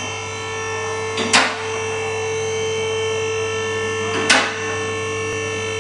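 Steady electric buzzing hum with two sharp crackling zaps, about a second in and again about four seconds in.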